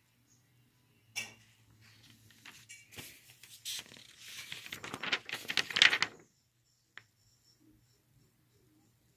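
Sheets of lined loose-leaf paper rustling and crackling as they are handled and shuffled on a stack. The sound grows louder over about five seconds, then stops abruptly, and a single light click follows.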